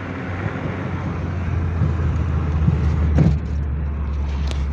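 Chevrolet Chevy's engine and exhaust running through a newly fitted silencer, a steady low drone with a slightly husky note, swelling a little about three seconds in, where there is also a brief knock.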